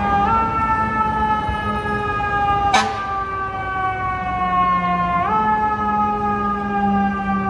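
FDNY fire engine's siren wailing. Its pitch jumps up quickly about five seconds in and slides slowly down in between. A brief sharp noise cuts through a little under three seconds in.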